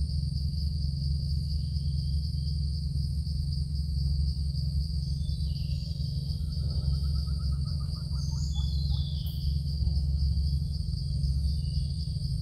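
Forest ambience: a steady insect chorus, with scattered bird chirps and a rapid trilling call about six seconds in, over a steady low hum.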